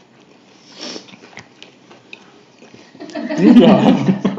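Quiet with a few faint clicks, then a loud burst of a person's voice about three seconds in that lasts roughly a second.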